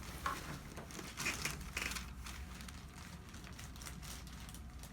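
Faint rustling and shuffling of a person settling on a padded treatment table, a few soft scratchy sounds in the first two seconds over a low steady room hum.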